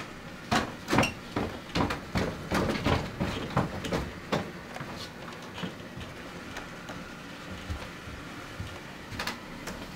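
Footsteps going down a flight of stairs: a run of irregular thuds, about two or three a second, for the first four seconds or so, then a couple more knocks near the end.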